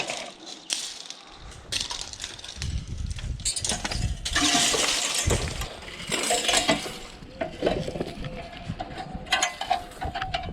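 Scrap metal being handled and loaded into a van: repeated clanks, clinks and scraping rattles of metal pieces, loudest about four to seven seconds in.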